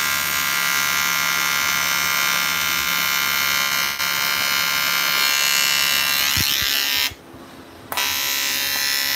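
TIG welding arc buzzing steadily while welding a leak in a motorcycle engine casing. The buzz cuts out for just under a second near the end, then starts again.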